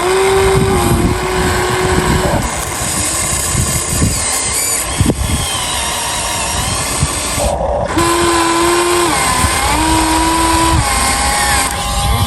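Radio-controlled model excavator's hydraulic pump and electric motors whining in short spells as the machine is worked, the pitch shifting slightly with load, over a steady noisy rumble. The whine runs for the first two seconds, then comes back twice, about eight and ten seconds in.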